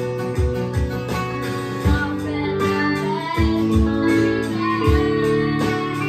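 A home band of children playing a song on electric guitar, acoustic guitar and Roland keyboard over a steady low beat, with a child singing.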